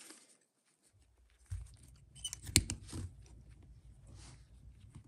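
Hands handling steel carabiners and a thin Dyneema soft shackle: scattered small clicks and rustles, with one sharp click about two and a half seconds in, over a low steady rumble.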